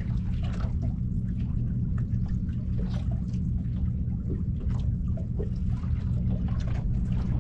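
Water splashing and trickling in short, irregular spurts over a steady low rumble.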